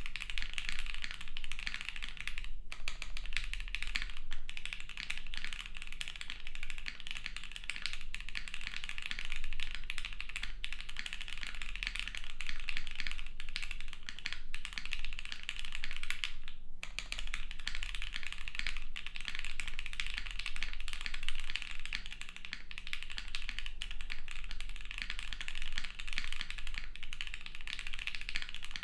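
Continuous typing on a Studio Kestra Nue mechanical keyboard, built plateless on a 1.2 mm PCB with Gateron Oil King linear switches and GMK Ki keycaps: a steady clatter of key strikes, with two short breaks, one about two and a half seconds in and one a little past the middle.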